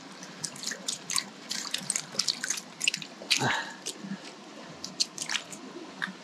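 Water dripping and splashing in many small, irregular drops close to the microphone, over a steady stream hiss.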